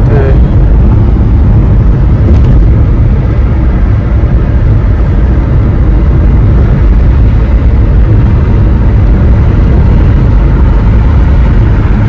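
Steady, loud road and wind rumble inside a moving car's cabin at highway speed.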